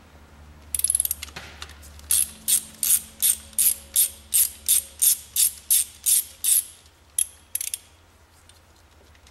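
Hand ratchet with a T30 Torx bit clicking as it backs out a Torx screw: a short quick run of clicks, then an even train of about three clicks a second, and two last clicks near the end.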